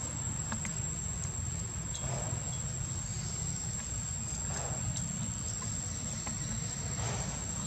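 Outdoor forest ambience: a steady high-pitched insect drone over a constant low rumble, with a few faint soft ticks.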